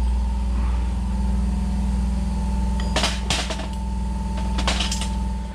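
A steady mechanical hum like a running machine, with a few sharp metallic knocks about three seconds in and again near the end. The hum cuts off abruptly at the end.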